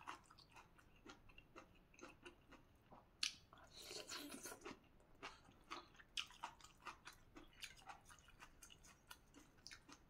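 Quiet close-up chewing with small crisp crunches, a few per second, and a denser run of crunching about four seconds in: a mouthful of raw water spinach stalk and noodle soup being eaten.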